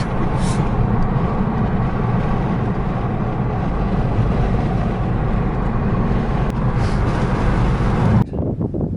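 Steady engine and road noise from a moving vehicle, ending abruptly at a cut about eight seconds in.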